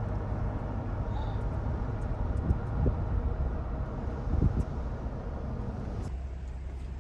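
Steady low rumble of a running vehicle, with two short bumps about two and a half and four and a half seconds in. The higher part of the noise thins out about six seconds in.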